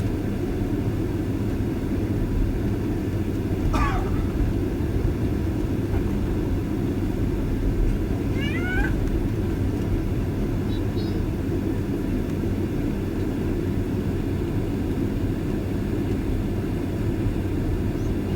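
Steady low rumble of a Boeing 767-323ER's jet engines as the airliner taxis. Two brief high squeaky sounds that glide in pitch come about four seconds in and again near nine seconds.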